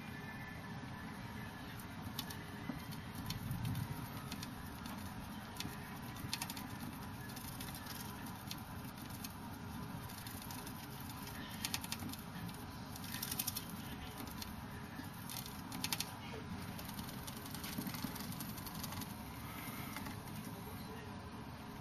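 Roborovski dwarf hamster scratching fast at the plastic wall of its cage: scrabbling claw clicks that come in several bursts over steady low background noise.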